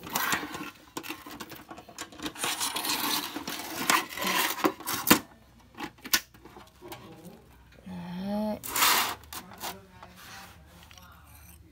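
A red sheet-steel socket-set case being handled: scraping and rubbing against the metal with sharp clicks as its latches are worked, then a rustle as the lid opens onto a foam sheet.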